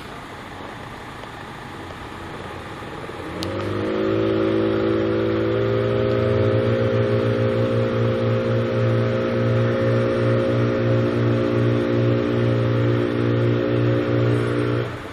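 Logging truck's diesel engine revving up about three seconds in and then held at high, steady revs, with a pulsing low throb. It drops away sharply near the end.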